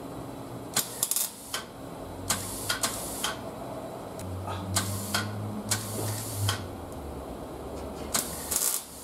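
MIG (semi-automatic) welder laying a string of short tack welds on thin, rust-thinned sheet steel of a 1950 Ford hood: about a dozen brief bursts of arc crackle with short gaps between them. Short pulses are used because the thin metal keeps melting through.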